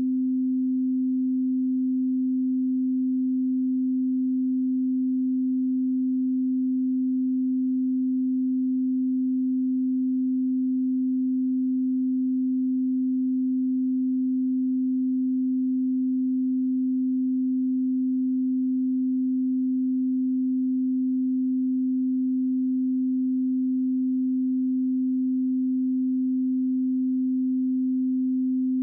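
A steady 258 Hz pure sine-wave test tone, one unchanging pitch at a constant level.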